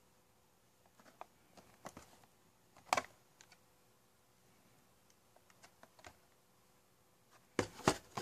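Scattered light taps and clicks of a boxed figure's cardboard-and-plastic window packaging being handled, with a louder pair of knocks near the end.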